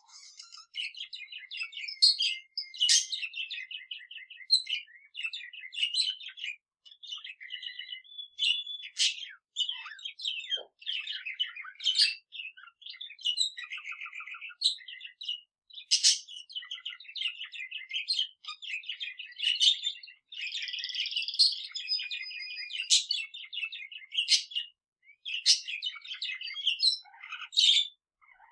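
A budgerigar's chattering warble mixed with a male canary's song: continuous high chirps, clicks and sharp squeaks, with rapid trills and a short held whistle.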